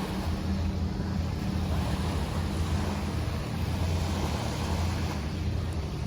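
Small waves washing on a shore, with wind rumbling steadily on the microphone.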